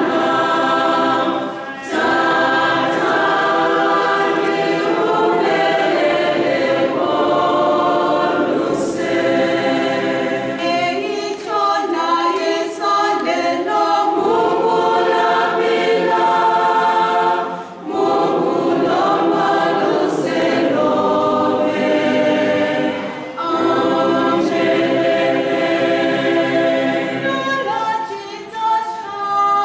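Church congregation singing a hymn together, in long held phrases with brief breaks between them.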